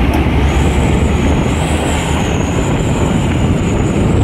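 Dump trucks' diesel engines running in close traffic, with road noise: a loud, steady low rumble and a thin high whine above it.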